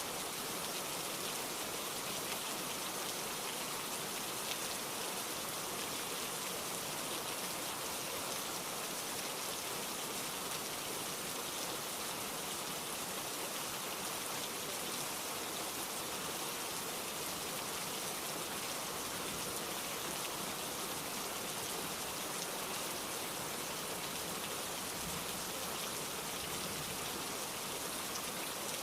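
Steady heavy downpour of rain, an even hiss of drops on surfaces with no letup.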